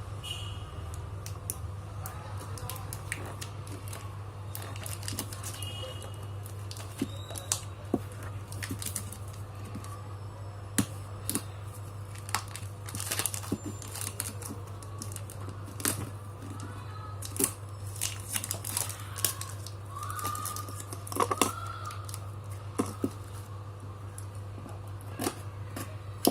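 Parcel packaging being torn open and crinkled by hand, with irregular rustles and small clicks over a steady low hum.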